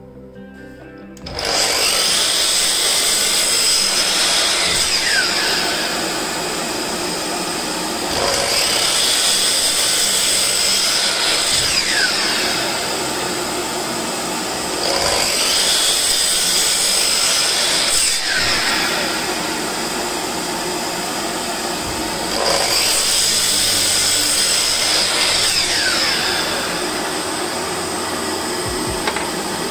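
Makita LS1219L 12-inch 1800 W slide compound miter saw starting about a second in and running throughout, crosscutting a round log with its bark on. The sound swells four times as the blade is drawn through the wood, and each cut ends with a falling sweep in pitch.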